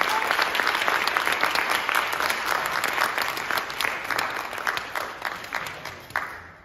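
Audience applauding: many hands clapping together, dense and steady, then thinning out and fading near the end.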